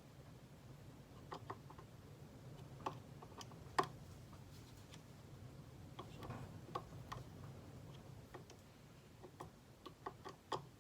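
Scattered small clicks and taps of a screwdriver working the scope ring screws, at irregular intervals with the sharpest about four seconds in and a quick cluster near the end, over a low steady hum.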